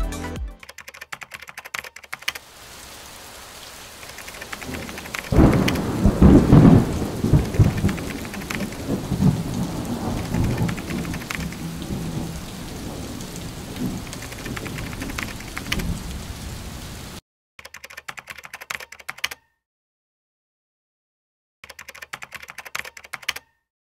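Rain falling steadily with a long roll of thunder that swells about five seconds in and slowly dies away. The rain cuts off suddenly, followed by two short runs of rapid typewriter-like key clicks. Similar clicks are heard at the very start.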